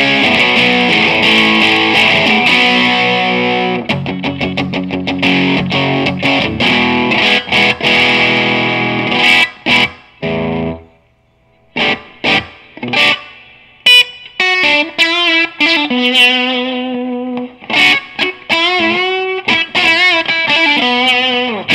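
Electric guitar played through a Crate Vintage Club 50 2x12 tube combo on its overdriven gain channel with reverb. About ten seconds of distorted strummed chords, a brief pause, then single-note lead lines with bends and vibrato, ending on a short reverb tail.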